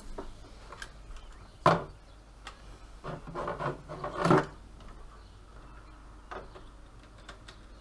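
Knocks, clicks and rubbing of a water cooler's tubing and pump block being handled inside a desktop PC case: a sharp knock about a second and a half in, a run of knocks and scraping around three to four seconds in ending in the loudest knock, and light clicks between.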